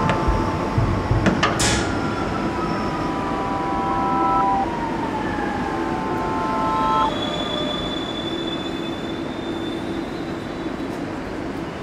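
Metro train running: a steady rumble with several held tones, one whine falling in pitch over a few seconds, and a short hiss about a second and a half in.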